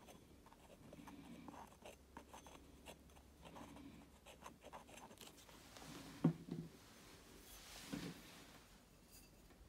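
Faint handling noise: small clicks and rubbing from a plastic squeeze bottle and a copper pipe as bonding liquid is dabbed onto the pipe end. A sharp knock comes about six seconds in, and a smaller one near the end.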